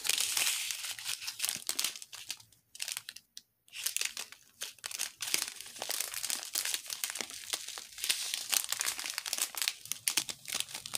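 Small clear plastic zip bags of square diamond-painting drills crinkling as they are handled, with a short lull about three seconds in.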